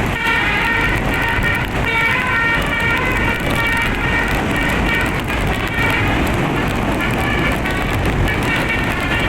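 Bus telolet horn playing a tune of short, quick multi-tone notes over a steady low rumble. The notes fade out about halfway through and start again right at the end.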